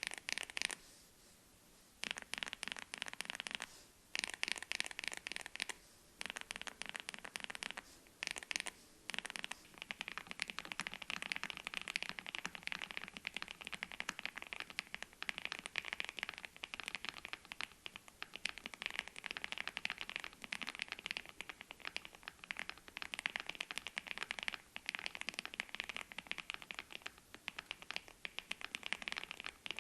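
Fast typing on a mechanical keyboard with Gateron Smoothie linear switches: a dense patter of key clacks. Short pauses break it up in the first ten seconds, then it runs on unbroken.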